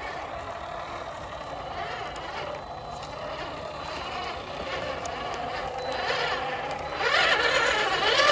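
Electric motors and gear drivetrains of RC scale crawlers whining steadily as they drive over grass and rock. The whine gets clearly louder about seven seconds in as one crawler comes up close.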